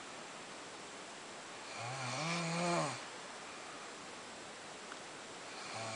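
A woman snoring loudly: one long snore about two seconds in, its pitch rising then falling, and the next snore starting near the end.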